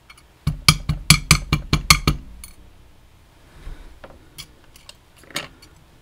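Metal clicks and taps from working a Vachette VIP lock with picks: a quick run of about eight sharp clicks in under two seconds, then a few faint single clicks.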